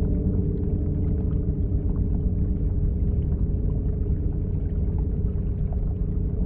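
Steady, deep rumbling drone with several sustained low tones layered over it: an ambient meditation sound composition.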